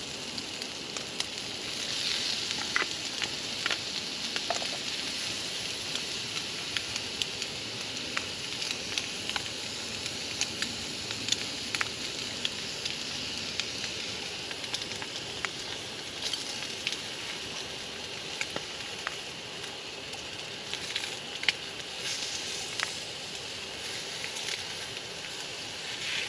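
Eggs with cheese and jalapeños sizzling in a small pot over a canister gas burner: a steady hiss with scattered small crackles and pops, hot enough that the eggs are starting to brown.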